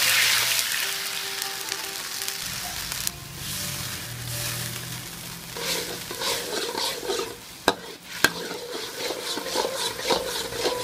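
Minced-pork sauce boiling and sizzling in a hot wok while a metal spatula stirs and scrapes it. A loud hiss at the start fades over the first few seconds. Later comes a bubbling, scraping stir, with two sharp taps of the spatula on the wok about three-quarters of the way through.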